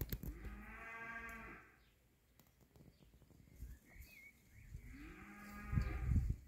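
Two long, drawn-out animal calls, each a little over a second long, the first near the start and the second about five seconds in.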